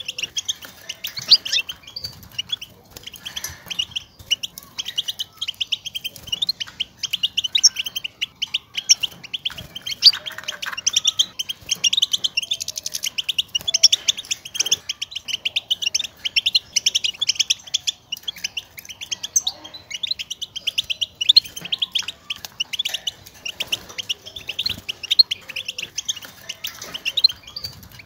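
European goldfinch twittering: a rapid, unbroken stream of high chirps. These are the contact calls goldfinches use to call to one another and to signal their presence.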